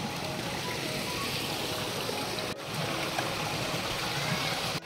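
Rain-fed rocky stream and waterfalls rushing steadily, an even wash of flowing water that briefly cuts out about halfway through.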